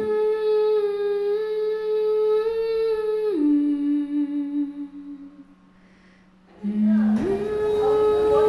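A slow melody of long held notes hummed by a single voice, stepping between a few pitches and dropping lower about three seconds in before fading out. After a short pause it starts again on a low note and rises. A faint steady low hum runs underneath.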